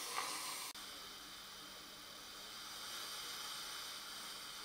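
Faint, steady hissing from a partly dismantled Francis Francis X6 espresso machine as hot vinegar and steam are pushed through it to descale limescale. The sound drops out for an instant just under a second in, then carries on evenly with a faint hum beneath the hiss.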